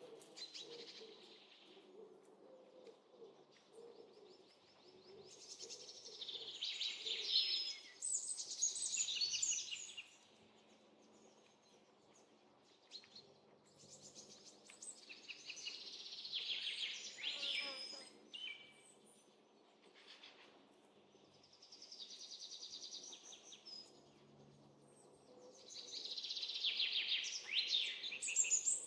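Birds singing in phrases of a few seconds each, with fast trills and quick rising and falling notes, separated by quieter spells.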